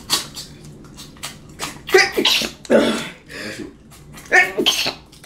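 A woman sneezing several times in quick succession, each one a short, loud burst.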